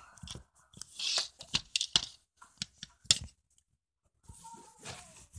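Handling noise close to a phone's microphone: rustling, scraping and a run of small irregular clicks, with a short hiss about a second in.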